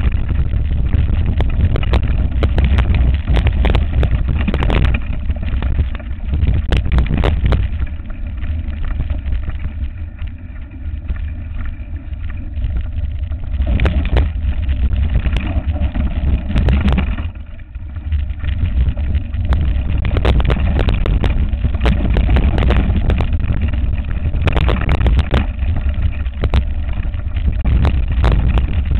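Mountain bike riding over a rough dirt and stone track, heard from a bike-mounted camera: wind buffeting the microphone as a steady low rumble, with frequent knocks and rattles from the tyre and frame hitting stones.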